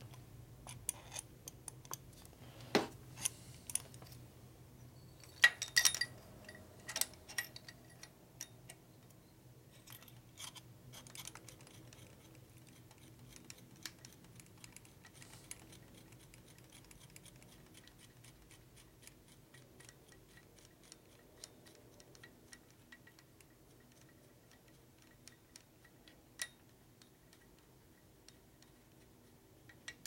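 Small metallic clicks and ticks of hands and a wrench working a pushrod adjuster on a shovelhead engine: a few sharper clicks in the first several seconds, then faint scattered ticking.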